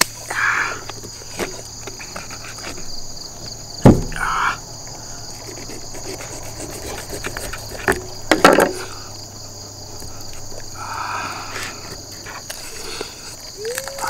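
Insects chirring steadily in a high, even band. Two sharp knocks, about four and eight and a half seconds in, are the loudest sounds.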